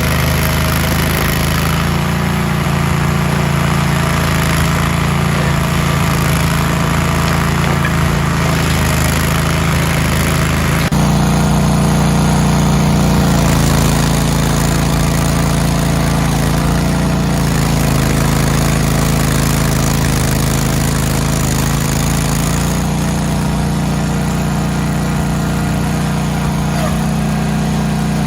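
Engine of a compact tracked stump grinder running steadily at working speed. The drone jumps a little louder at a cut about 11 seconds in and shifts again later on.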